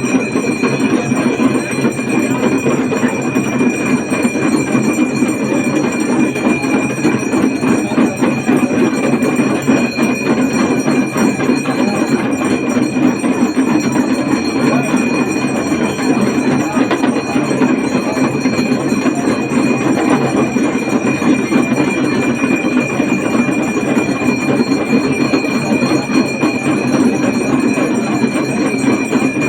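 Many damru drums rattling rapidly and without pause, mixed with jingling bells and a steady high ringing tone.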